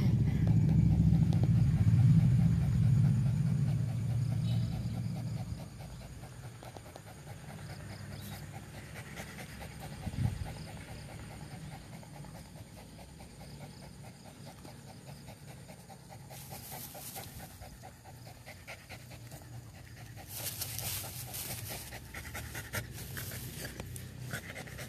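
A dog panting rapidly, close by. A loud low rumble covers the first few seconds, there is a single thump about ten seconds in, and a couple of short rustles come later.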